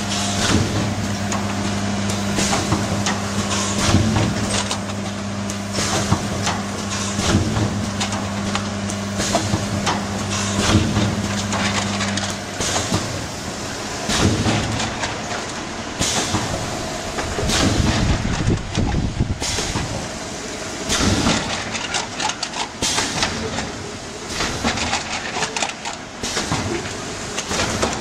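Cup filling and sealing machine with conveyor running: repeated short mechanical clacks over a steady low motor hum, and the hum stops about halfway through.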